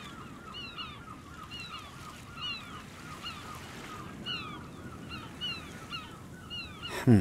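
A flock of birds calling steadily, many short falling calls a second. Right at the end comes a loud, quick sound that sweeps downward in pitch.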